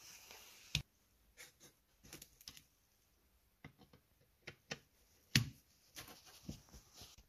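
Scattered sharp metallic clicks and taps as a socket is set on and turns the terminal nuts of a Model T trembler coil's wooden box. The loudest clicks come about a second in and again just past the middle.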